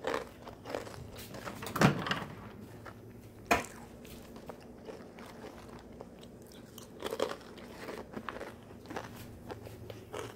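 Handling noises from a clear plastic food container of chips topped with cheese slices: irregular knocks and crunchy rustles as it is picked up, shifted and set into a microwave. The sharpest knocks come about two and three and a half seconds in, with a cluster of clicks around seven seconds.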